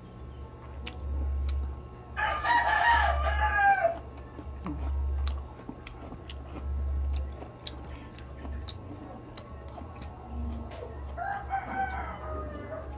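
A rooster crowing twice: a long crow about two seconds in and a shorter one near the end. Under it, soft clicks of chewing and eating by hand.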